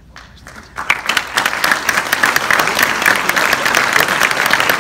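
Audience applauding: the clapping swells up over the first second, then runs on as a loud, dense clatter of many hands.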